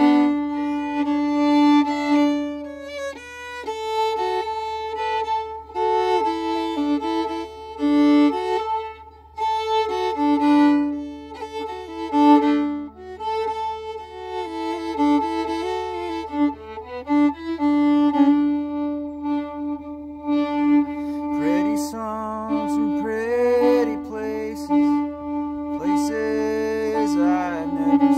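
Violin playing a slow instrumental melody over a sustained low note, with wide vibrato and sliding notes in the last few seconds.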